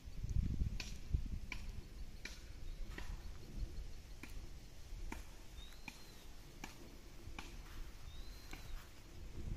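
Footsteps at a steady walking pace, about one step every three-quarters of a second, with low rumbling in the first second. Two short high chirps that rise and fall come a little over halfway through and again near the end.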